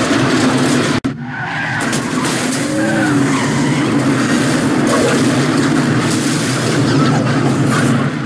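Film sound effect of a fireball sweeping through a road tunnel after a crash into chemical trucks: a loud, dense, sustained rush of fire. It breaks off sharply for an instant about a second in, then carries on.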